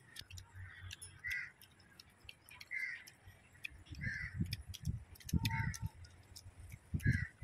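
A crow cawing about five times, one short caw roughly every one and a half seconds, over sharp little clicks and low handling noise.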